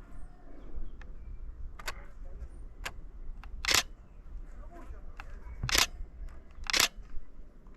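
Canon Rebel T7i DSLR shutter firing single shots: a couple of faint clicks, then three sharp, louder clicks in the second half, the last two about a second apart.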